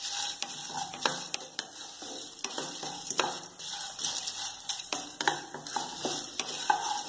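A spatula stirring and scraping whole coriander seeds and dried red chillies around a nonstick pan as they roast in a little oil and ghee, over a steady faint sizzle, with frequent sharp clicks and scrapes.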